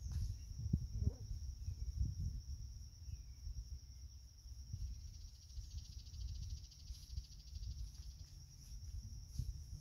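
Insects chirring in one steady high-pitched note, with a second, pulsing buzz joining about halfway through for a couple of seconds. Underneath, a louder, uneven low rumble of noise on the microphone.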